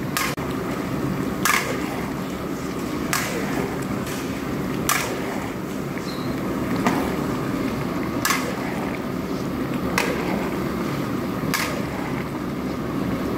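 A long-handled spatula scrapes and knocks against a large metal paella pan in regular stirring strokes, one about every second and a half to two seconds. Under it is a steady low rush from the burner and the simmering rice.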